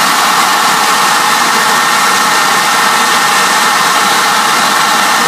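Leaf blower running flat out, a loud steady rush of air with a whine of several steady tones, its blast aimed at a fidget spinner to spin it up.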